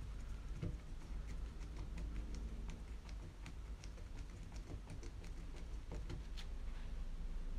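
Hand screwdriver turning a small screw into the plastic chassis of a Tamiya TT-02 kit: faint, irregular small clicks and ticks over a low steady hum.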